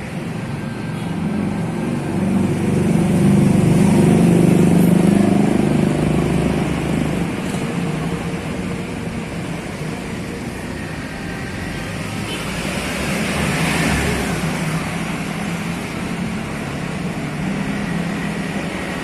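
Road traffic noise, with vehicles passing: it swells about four seconds in and again around thirteen seconds in.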